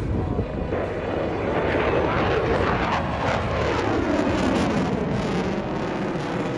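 Jet aircraft flying past, its engine roar swelling about a second in, then sweeping down in pitch as it passes.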